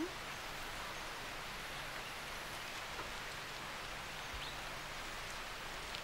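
Steady monsoon rain falling on forest-floor leaf litter, with a faint tick or two.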